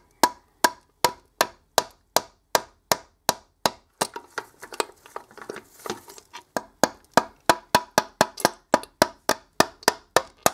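Hammer blows on a close-fitting rod driven into a grease-packed bearing bore, about three a second, each a sharp knock with a short ring. This is the grease hydraulic method of pushing a blind, flush-pressed bearing out of a milling machine gearbox casting. The blows come closer together and less evenly for a couple of seconds in the middle.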